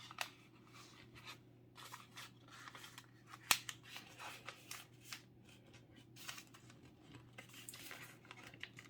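Folded A4 paper being pulled apart and handled into a boat shape: faint, scattered rustling and crinkling with small ticks of creasing paper, and one sharper click about three and a half seconds in.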